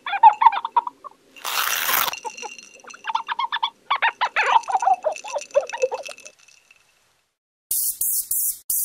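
A run of short squeaky chirps and clicks as the red letters and a tape measure are animated into place, with a brief hiss about one and a half seconds in. Near the end, several short hissing sprays from an aerosol can of Starrett M1 rust-preventive lubricant.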